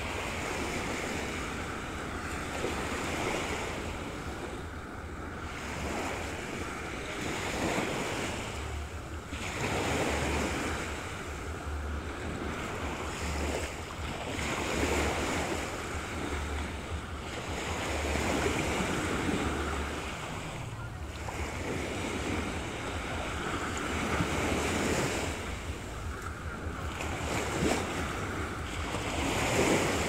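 Small sea waves washing onto a sandy shore, swelling and falling back every two to three seconds, with a low rumble of wind on the microphone.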